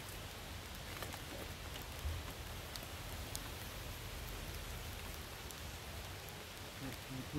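Steady light rain pattering on surfaces, with scattered drop ticks and a couple of faint knocks as the wooden hive cover is handled.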